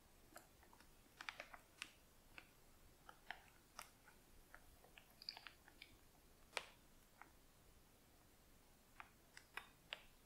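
Faint scattered crackles and clicks of a plastic piping bag being squeezed as cream is piped, coming in small clusters every few seconds with the sharpest about six and a half seconds in, over near silence.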